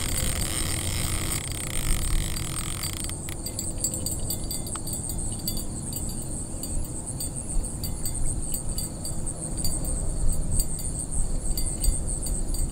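Wind rumbling on the microphone, with insects chirping in a steady high, rapidly ticking trill. A hiss runs over the first three seconds and cuts off suddenly.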